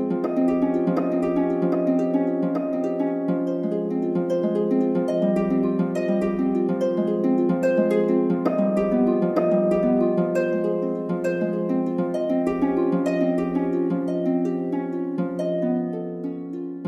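Relaxing instrumental background music: a stream of plucked-string notes, harp-like, over a steady low drone.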